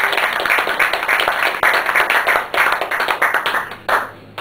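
A small group of people clapping, a dense patter of hand claps that dies away near the end.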